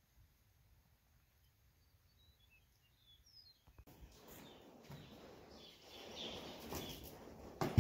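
Faint, high bird chirps over a very quiet background. From about four seconds in, louder scuffing, rustling and knocks from a man climbing up to stand on the saddle of a sorrel horse in a dirt arena, with one sharp knock near the end.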